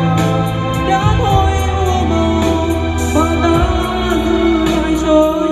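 A woman sings live into a handheld microphone over a music backing track with a regular beat, both played through an outdoor stage PA system of ATI line-array speakers and subwoofers.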